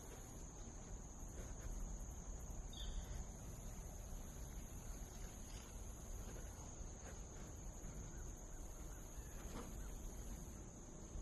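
Steady high-pitched insect chorus droning without a break, over a low rumble, with a brief faint chirp about three seconds in.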